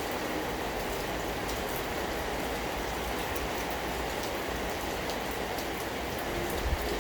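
Steady rain falling, with scattered individual drops ticking. A single soft low thump comes near the end.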